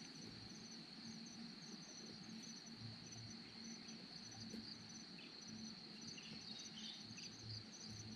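Insects calling steadily: a continuous high chirring drone with a second, rhythmically pulsing chirp above it.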